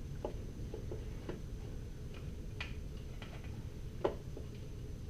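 Scattered light clicks and taps of metal parts being handled as the cylinder head comes off a 1993 Yamaha 9.9 four-stroke outboard, with one sharper click about four seconds in.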